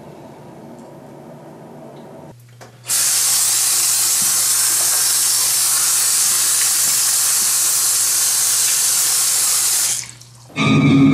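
Bathroom sink faucet turned on about three seconds in, water running as a loud steady hiss over cupped hands into the basin, then shut off abruptly about ten seconds in.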